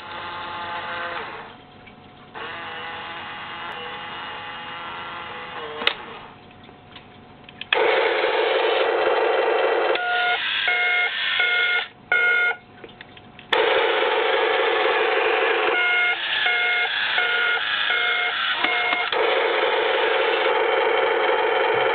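Electronic sound effects played through a Tonka toy bulldozer's small built-in speaker: a buzzy machine sound that comes in stretches and gets louder about a third of the way in, with two runs of alternating beeping tones.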